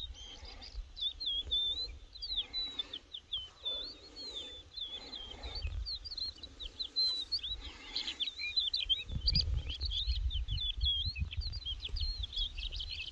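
Songbirds singing in a busy chorus of quick, high chirps and twitters, over a low rumble that gets heavier about nine seconds in.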